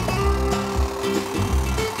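Background music with a bass beat and held tones.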